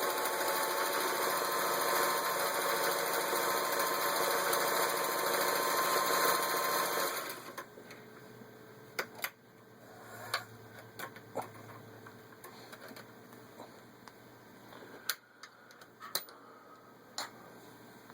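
Singer 503A zigzag sewing machine running steadily at speed, stitching with the arrowhead fashion cam, and stopping about seven seconds in. After that come scattered sharp clicks and knocks of handling the machine.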